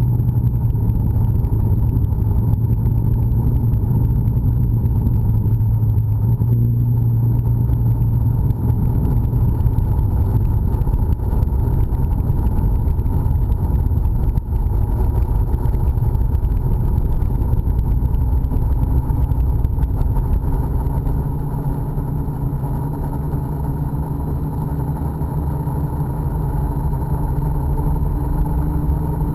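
Electric motor and propeller of a radio-controlled model aircraft, picked up by its onboard camera, running steadily throughout. Its pitch shifts a couple of times: lower about ten seconds in, higher about twenty seconds in.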